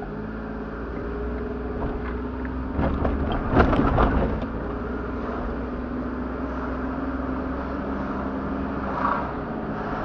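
Car engine pulling away, heard from inside the cabin. About three to four seconds in, tyres knock over the level-crossing rails, then the car drives on steadily.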